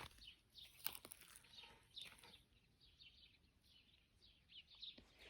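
Near silence with faint bird chirps, short falling notes repeating, and a few faint clicks.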